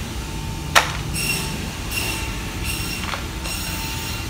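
Grocery store background noise: a steady low hum, with a sharp knock about a second in and a fainter one about three seconds in.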